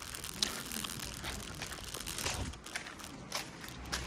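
Irregular rustling and crackling with scattered light knocks, typical of handling noise on a handheld camera's microphone as it is carried and turned while walking.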